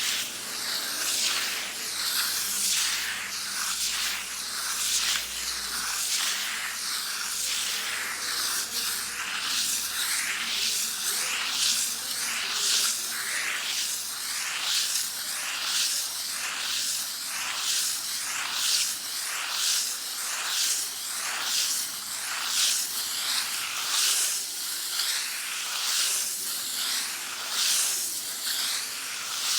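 Sandpaper rubbed back and forth on a wall: a harsh scraping hiss in steady, repeated strokes, about one a second.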